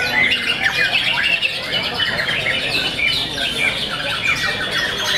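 White-rumped shamas singing in competition, several birds at once. The song is a dense, unbroken stream of whistles, trills and rapid repeated chattering phrases.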